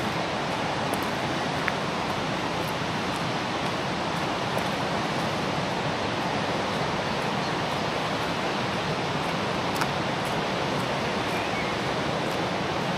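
The Iller River rushing in flood at very high water, a steady, even rush of fast-flowing water, with a couple of small clicks.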